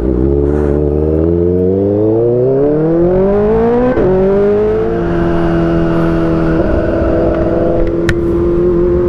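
Kawasaki ZX-4RR's 400 cc inline-four engine accelerating hard under way. Its note rises steadily for about four seconds, drops as it shifts up about halfway through, then holds at high revs.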